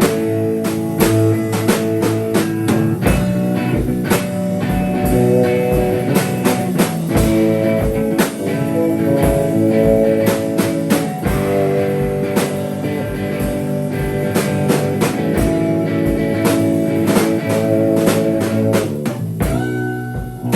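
A band playing an improvised jam: guitar holding sustained chords over a drum kit keeping a steady beat.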